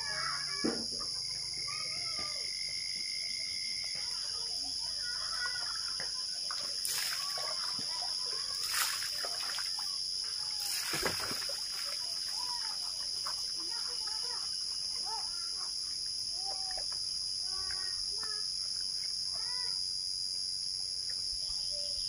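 Chickens clucking and a rooster crowing, with water splashing a few times around the middle as it is poured over a bather, all over a steady high-pitched drone.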